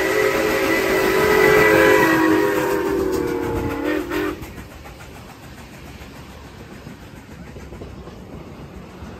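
Nickel Plate Road 765, a 2-8-4 Berkshire steam locomotive, blowing its steam whistle: a loud chord of several tones, dipping slightly in pitch just before it cuts off about four seconds in as the engine passes. Then the passenger cars roll by, much quieter.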